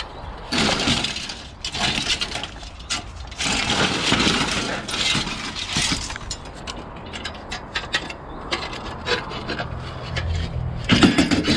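Scrap metal and debris being dragged and shifted in a scrap pile: rough scraping and rustling in several bursts of a second or two.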